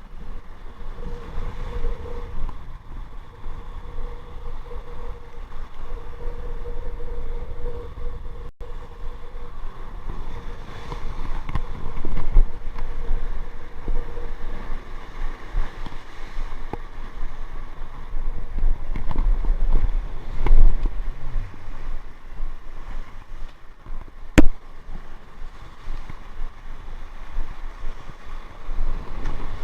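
Rough sea washing on the rocks, with wind buffeting the microphone in gusts. A faint steady tone sounds over the first third, and a single sharp click comes about three-quarters of the way through.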